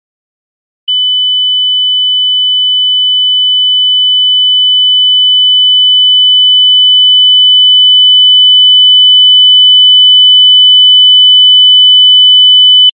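Telephone howler tone to the Bangladeshi specification: a single high, steady electronic tone that sounds without a break and slowly grows louder. It is the exchange's warning that a handset has been left off the hook.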